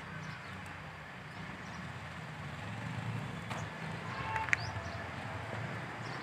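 Quiet outdoor ambience: a steady low rumble, with a few faint chirps and a sharp click about four and a half seconds in.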